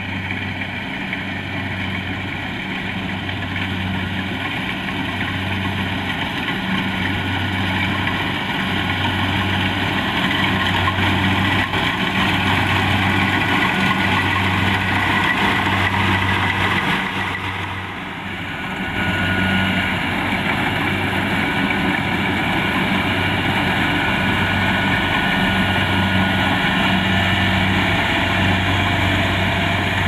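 Kubota DC-70 Plus rice combine harvester's diesel engine running steadily while the machine cuts rice, with a low hum that swells and eases slowly. It grows louder over the first ten seconds as the harvester comes closer, with a brief dip about eighteen seconds in.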